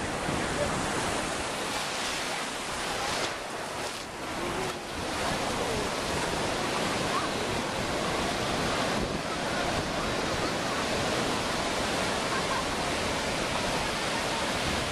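Ocean surf breaking and washing through the shallows of a sandy beach: a steady rushing noise with no pauses.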